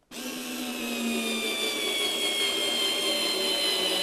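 Parkside PAS D5 4 V cordless screwdriver, fitted with its eccentric offset attachment, driving a screw. It starts abruptly and runs with a steady motor-and-gear whine that falls slowly in pitch.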